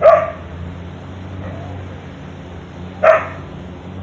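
Street dog barking twice: one sharp single bark at the start and another about three seconds later.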